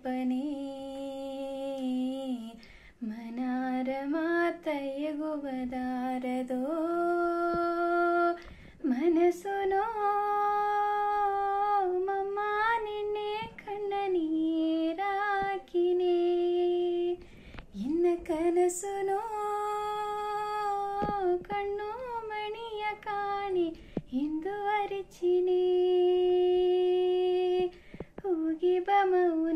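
A woman singing solo with no accompaniment, holding long notes with a wavering pitch and sliding between them, pausing briefly for breath.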